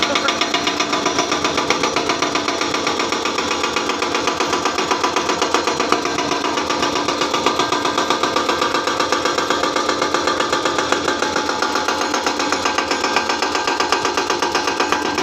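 Excavator-mounted hydraulic rock breaker hammering stone in a rapid, steady run of blows.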